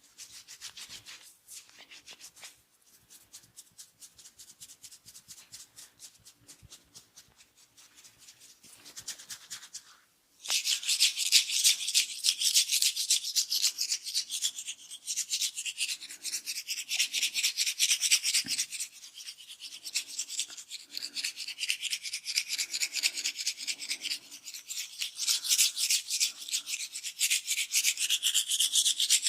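Hands rubbing and scratching through hair and scalp during a barber's head massage: a fine, rapid rasping, faint at first and then abruptly much louder and hissier from about ten seconds in.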